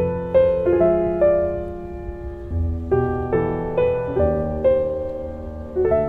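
Background music: a piano playing a melody of single struck notes, about two a second, over lower held notes.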